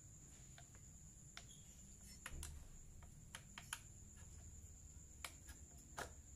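Faint, scattered clicks and light taps of small engine parts and hand tools being handled during reassembly of a two-stroke grass-cutter engine, about half a dozen at irregular intervals.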